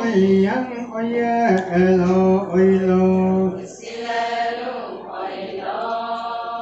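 Adi Ponung song: a single lead voice sings long held notes, then a little past halfway the line of women answers together in a chanted chorus.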